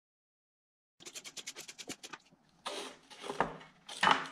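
After a second of silence, a quick rattling run of clicks, about ten a second, then scraping and knocks as the timing cover of a 12-valve Cummins is pulled off the engine's front.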